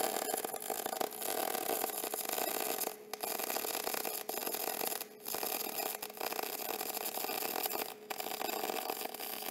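Gas metal arc (MIG) welding arc on raw steel tubing, fed with .035 wire, crackling steadily as a fillet weld is run, with three brief breaks.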